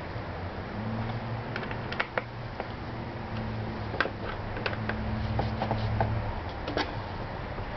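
Phillips screwdriver tightening screws into a scooter's plastic air filter cover: scattered small clicks and ticks of the driver and screws. A low steady hum runs underneath from about a second in until about six seconds in.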